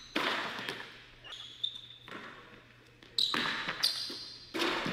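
Basketball bouncing hard on a gym's hardwood floor, several sharp bounces echoing in the hall, mixed with short high squeaks of sneakers on the court.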